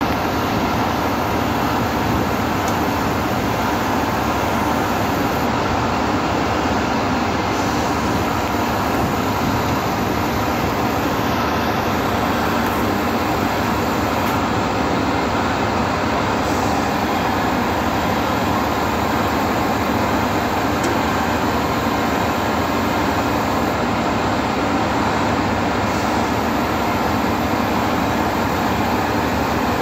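Putzmeister truck-mounted concrete boom pump running while its hydraulic boom is folded down: a loud, steady mechanical noise that holds unchanged throughout.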